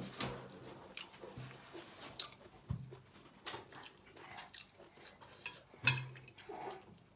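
Eating sounds: chewing, with a spoon clicking and scraping against a plate in short, scattered touches. The loudest clink comes near the end.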